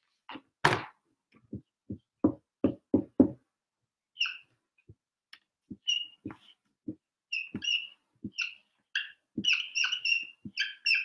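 A run of sharp knocks in the first few seconds while the whiteboard is being wiped, then a dry-erase marker squeaking on the whiteboard in short strokes as letters are written, the squeaks coming thicker near the end.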